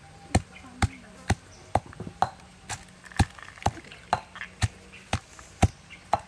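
Blade chopping on a wooden cutting board in a steady rhythm, about two sharp strokes a second.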